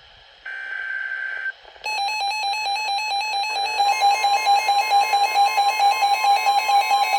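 Emergency Alert System data burst: a buzzing digital SAME header tone lasting about a second, then, about two seconds in, a pulsing electronic alert tone that starts, runs on and gets louder partway through.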